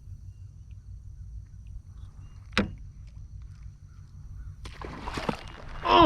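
Steady wind rumble on the microphone, with a single sharp knock about two and a half seconds in. Near the end comes a burst of splashing as a redfish strikes the topwater lure, closed by a loud cry that drops steeply in pitch.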